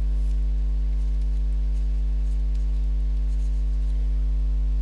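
Steady low electrical mains hum with a stack of even overtones, the loudest sound throughout. Over it, faint light scratches of a stylus writing on a drawing tablet.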